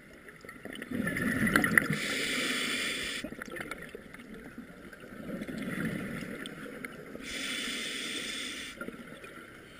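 Scuba diver breathing through a regulator underwater: bubbling, rumbling exhalations alternating with two hissing inhalations, each about a second and a half long. The first exhalation, about a second in, is the loudest.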